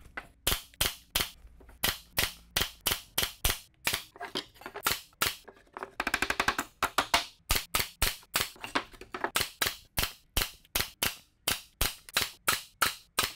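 Pneumatic air stapler driving crown staples into wooden boards: a rapid run of sharp shots, about three a second, with a quicker cluster about six seconds in.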